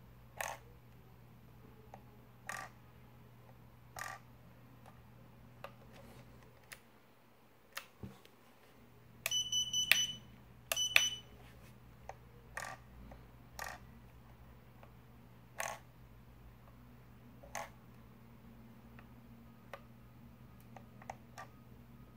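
Gimbal sticks of a Jumper T12 radio transmitter being worked, giving short sharp clicks every second or two. About nine to eleven seconds in come two short runs of high electronic beeps, the loudest sound.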